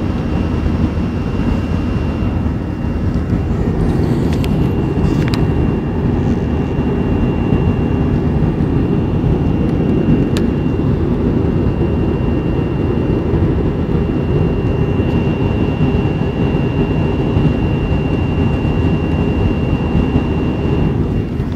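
Jet airliner cabin noise in flight: a steady, even rush of engine and airflow noise, deepest in the low end, with a thin high whine held steady over it. A few brief clicks sound in the first half.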